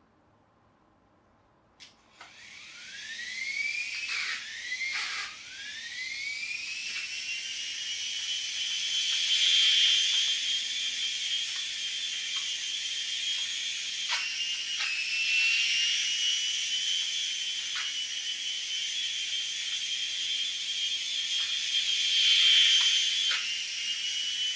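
Small electric motor of an Air Hogs Moto Frenzy RC motorbike spinning up with a high whine after a click about two seconds in. The pitch climbs, drops back twice, then holds as a steady high whine with small swells.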